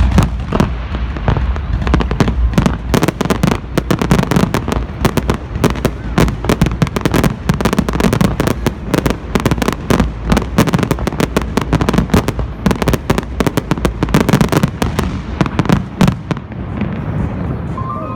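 Dense fireworks barrage: rapid crackling and bangs over deep booms, thinning out near the end.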